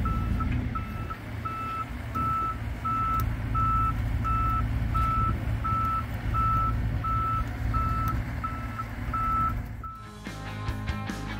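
Motion alarm of a 2022 XCMG XE35U mini excavator beeping steadily, about one and a half beeps a second, over the hum of its 25 hp Tier 4 diesel engine. Near the end the machine sound gives way to music.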